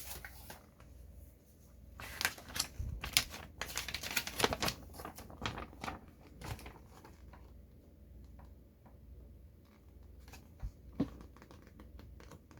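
Clicks, scrapes and rustles from handling a plastic toy model and its packaging. A dense run of sharp clicks comes about two seconds in and lasts several seconds, then there are a few scattered ticks and one louder knock near the end.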